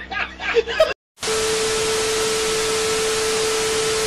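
A man's loud laughter for about the first second, cut off abruptly. After a moment of silence comes a TV-static hiss with a steady tone running through it.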